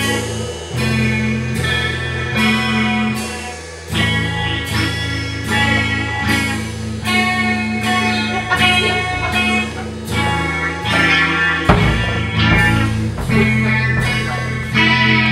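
A small rock band of electric guitar and drum kit playing live: sustained electric guitar chords over a steady drum beat with cymbal hits. The music dips briefly just before four seconds in, then comes back in full.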